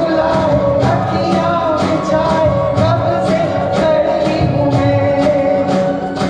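Live band music: a wavering lead melody over a steady beat of about two strokes a second.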